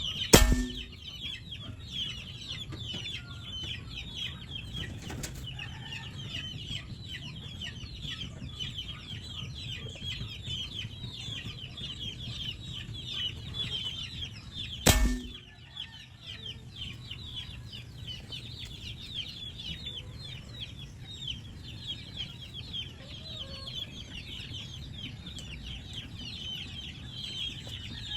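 Two shots from a PCP air rifle, one just after the start and one about halfway through, each a sharp crack. Steady high-pitched chirping of birds runs underneath.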